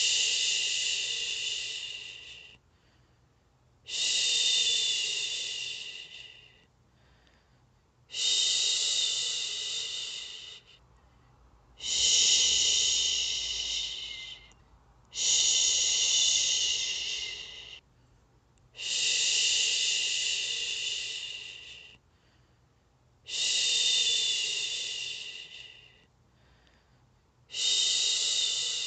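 A woman shushing, long soothing 'shhhh' sounds to lull a baby to sleep. There are eight of them, each starting sharply and fading away over about two and a half seconds, one every three to four seconds with brief quiet gaps between.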